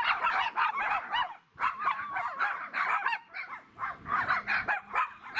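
A pack of small poodles barking and yapping over one another in quick, high-pitched barks, with a brief lull about a second and a half in. It is excited barking from dogs running about and romping at play.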